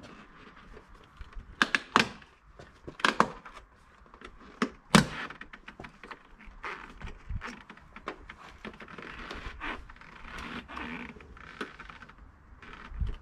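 Chrome window trim on a BMW F31 being pried off its clips with a plastic trim tool: a run of sharp clicks and snaps, the loudest about two, three and five seconds in, with lighter ticking and scraping between.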